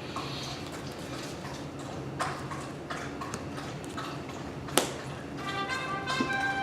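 A few sharp taps of playing cards being laid down or tapped on a table, over a steady low hum. About five seconds in, faint steady tones of background music come in.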